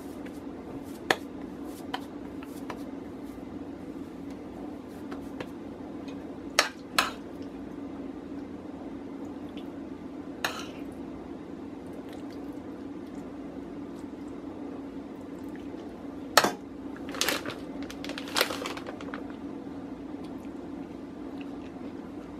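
A metal spoon clinking against a metal pot and scraping as ground-beef filling is scooped out, a handful of scattered sharp clinks with the loudest a little after two-thirds of the way through, over a steady low hum.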